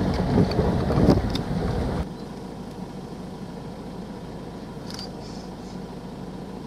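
Open safari vehicle driving, with wind buffeting the microphone. About two seconds in this cuts off abruptly to a quieter, steady low engine hum of the vehicle idling, with a faint short chirp near the end.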